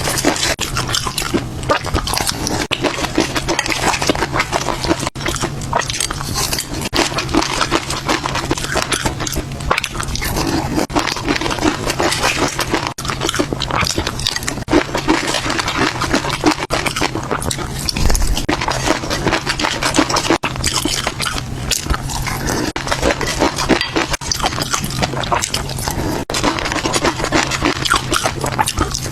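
Close-miked ASMR eating of caviar: wet chewing and mouth smacking, a continuous stream of small clicks and crackles over a steady low hum.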